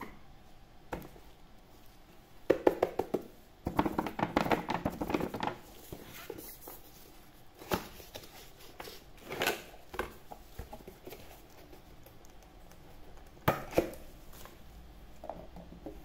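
A toy's cardboard box and plastic packaging handled and opened with gloved hands. A busy run of rustling, crinkling and tapping comes a few seconds in, followed by scattered single sharp knocks.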